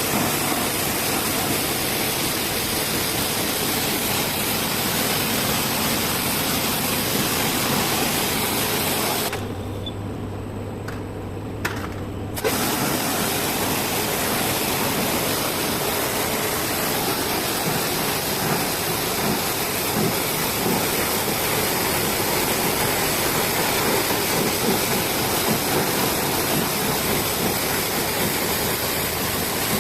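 Pressure washer spraying water onto an AHU pre-filter in a steady hiss. About nine seconds in, the spray stops for about three seconds, leaving only a low motor hum, then starts again.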